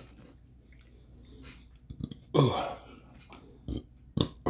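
A man's short burp just past halfway, between quiet stretches of eating noise, followed by a few small mouth clicks.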